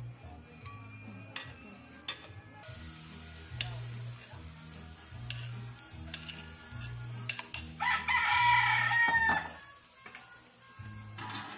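A rooster crows once, loudly, about eight seconds in, for about a second and a half. Around it, a spoon clinks and scrapes against a metal wok.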